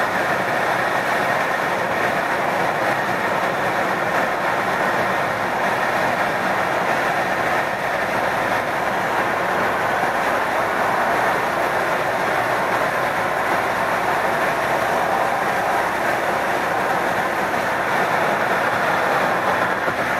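Steady road noise inside a car driving at highway speed: tyres on the concrete deck and wind.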